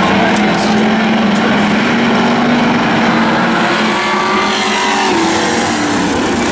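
Demo race cars' engines running at speed around an oval track: a loud, steady engine drone whose pitch shifts a little in the second half.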